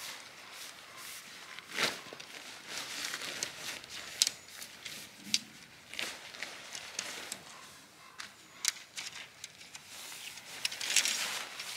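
Irregular rustling with scattered sharp clicks and knocks; the loudest knocks come about 2 and 4 seconds in, with a busier cluster near the end.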